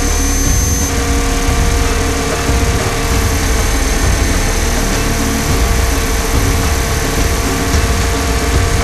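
Radio-controlled 500-size UH-60 Black Hawk scale helicopter in flight, heard from on board: a steady whine of its motor and rotors over a low rumble.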